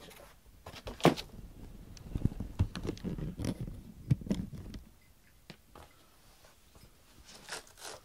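Handling noise of household items being moved and set down: rustling and scraping with irregular knocks, the loudest a sharp knock about a second in. It quietens from about five seconds in, leaving a few faint ticks.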